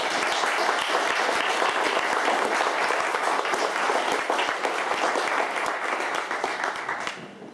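Audience applause: many hands clapping in a steady, even patter that dies away near the end.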